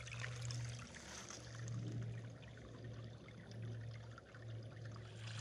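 Shallow stream water trickling over stones, faint and steady, with a low hum underneath that breaks off briefly a few times.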